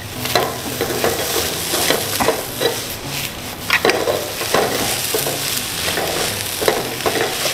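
Fried rice sizzling in a nonstick wok while a metal spatula scrapes, scoops and turns it, with repeated sharp scrapes against the pan.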